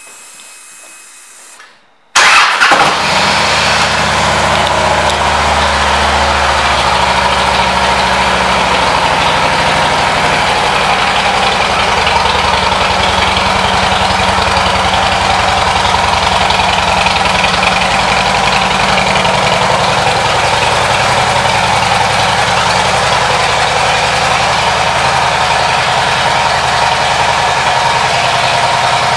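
2010 Harley-Davidson Road King's air-cooled V-twin, fitted with a Screamin' Eagle exhaust, starting about two seconds in and then idling loudly and steadily.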